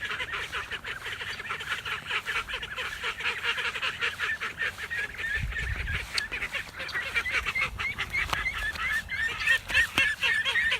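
Call ducks and their ducklings calling together: a dense, unbroken chatter of short, high, quickly repeated calls.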